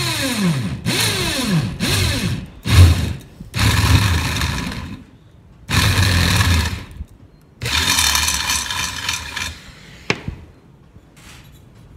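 Corded electric drill boring through the metal wall of an empty fire extinguisher cylinder held in a vise, run in a series of short bursts with pauses between. The motor's pitch drops away as the trigger is released. A single sharp click comes near the end.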